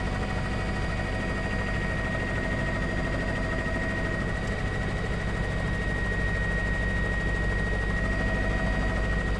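Steady engine drone heard inside the cabin of a low-flying survey aircraft: a constant low rumble with a thin, steady high whine over it.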